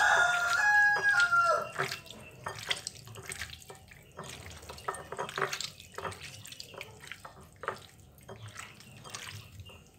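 Wet, irregular squishing of a hand mixing raw catfish pieces with salt and crushed garlic in a glass bowl. A rooster's crow trails off in the first two seconds.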